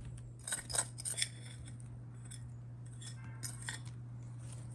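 Metal spoon clinking and scraping against a glass bowl and baking dish while spooning a crumbly pecan topping, a few light clicks in the first second and more a little past the middle, over a steady low hum.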